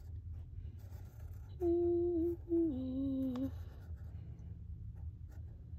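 A person humming two short held notes, the second one stepping down lower, about two seconds in.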